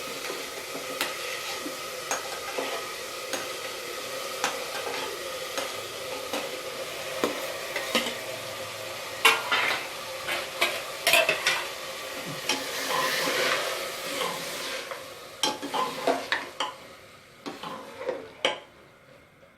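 Methi leaves with green chillies and chopped tomatoes sizzling in oil in a steel pressure cooker, with a spoon stirring and scraping against the pot in frequent clinks. The sizzle dies down over the last few seconds.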